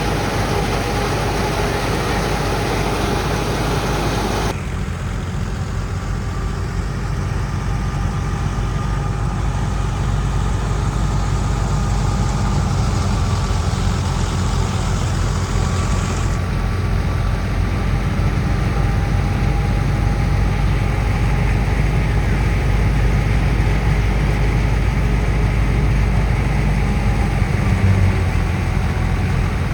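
Engine of heavy harvesting machinery running steadily, strongest in a low rumble, with the sound changing abruptly about four seconds in.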